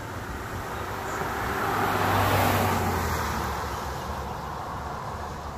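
A car passing by on the street, its sound swelling to a peak about two seconds in and then fading away.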